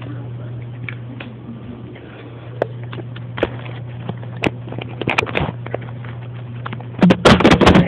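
Someone eating Cheetos: scattered crunches and crackles, building to a loud dense burst near the end, over a steady low hum.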